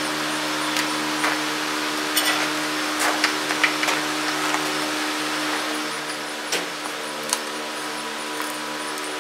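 Short metallic clicks and clinks of a small wrench on the oil drain plug of a small engine as the plug goes back in, about eight of them, over a steady machine hum.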